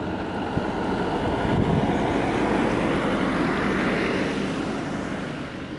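A passing vehicle: steady noise that builds over the first couple of seconds and fades away toward the end.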